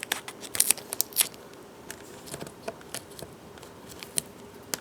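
Irregular small clicks and crackles of fingers working adhesive tape and the display cable connector on a laptop, densest from about half a second to just over a second in, then a few scattered clicks.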